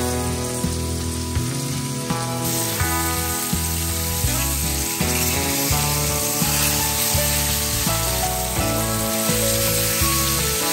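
Coated food sizzling in hot fat in a cast iron skillet, the sizzle jumping louder about two and a half seconds in and staying steady. Background music with a steady beat plays along.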